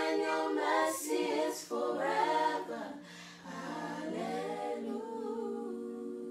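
Several voices singing a worship song together unaccompanied: short sung phrases, then a long held note from about four seconds in, softer than the phrases before it.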